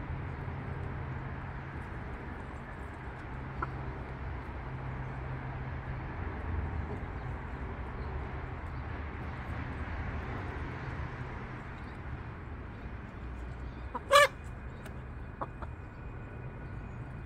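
A flock of barred hens clucking as they feed, with one short, loud squawk about fourteen seconds in. A steady low hum runs underneath.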